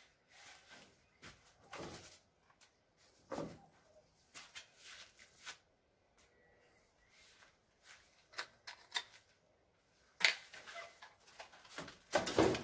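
Scattered handling noises: short clicks, knocks and rustles at irregular times, with a sharp knock about ten seconds in and a cluster of knocking and rustling near the end.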